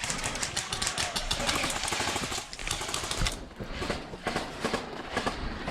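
Airsoft guns firing rapid strings of sharp clicking shots, thick for about three seconds and then more scattered.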